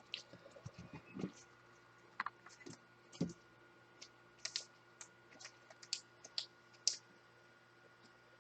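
Faint, irregular light clicks and taps, about a dozen spread over several seconds.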